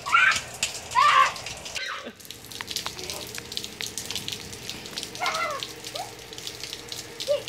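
Rain pattering steadily on wet ground, with young children's high-pitched shouts and squeals twice near the start and again about five seconds in.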